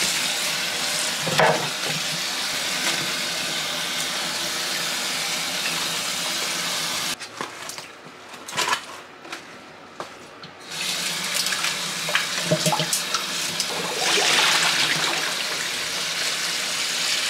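Kitchen faucet running into a stainless steel stockpot of water in the sink as raw pork is washed in it. The flow drops away for a few seconds in the middle, with a few knocks, then runs again, with water splashing as hands rub the meat in the pot.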